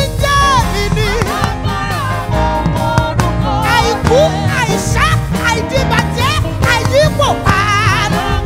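Live gospel praise music: women singing into microphones over instrumental accompaniment, their held notes wavering.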